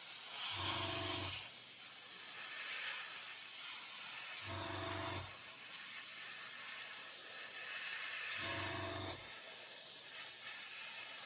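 Airbrush spraying thinned acrylic paint, a steady hiss of air. A short low hum comes in three times, about four seconds apart.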